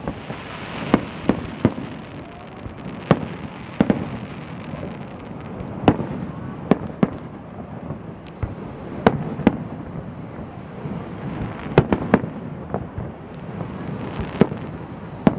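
Aerial fireworks show: shells bursting in sharp bangs at irregular intervals, some in quick pairs or clusters, over a steady rushing background.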